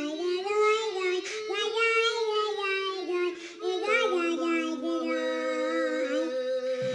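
A child singing a silly tune in a put-on character voice, hand cupped over mouth and nose. Notes are held and slide, and it ends with a sung countdown, "five, four, three, two, one".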